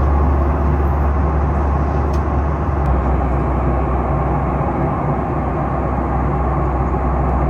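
Cabin noise of a Boeing 737 airliner in flight: a steady low rumble of engines and rushing air, with a couple of faint ticks about two to three seconds in.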